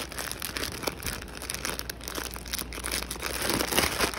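Clear plastic packaging around mesh laundry bags crinkling and rustling as hands handle it, an irregular crackle.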